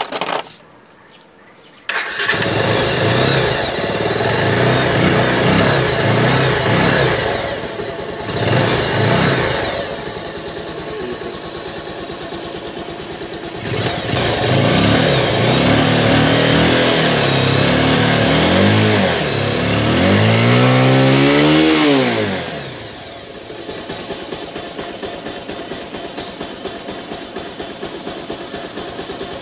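R180 motorcycle engine starting about two seconds in and running, revved up and down several times, then settling to a steady idle for the last few seconds. It fires and runs after the repair of its ignition (stator/pulser) fault.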